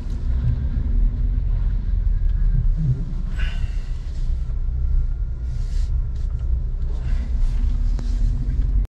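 Low, steady rumble of a Chevrolet Spark GT running and rolling slowly, heard from inside the car's cabin.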